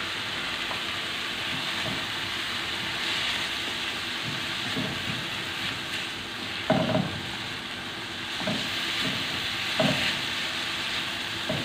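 Shredded onions sizzling steadily in oil in a non-stick frying pan as a spatula stirs them, with a few knocks and scrapes of the spatula against the pan. The loudest knock comes a little past halfway.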